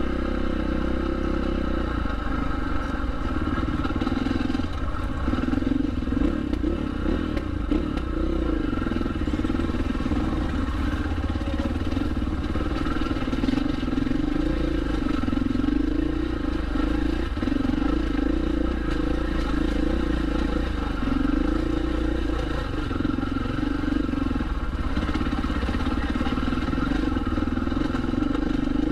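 2019 Husqvarna 501's single-cylinder four-stroke engine running at low revs on a rocky trail, its note rising and falling every second or two as the throttle is worked.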